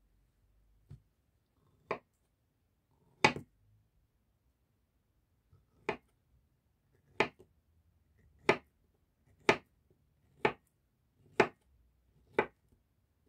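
A kitchen knife slicing a peeled avocado on a wooden cutting board. The blade taps the board about ten times, most cuts about a second apart.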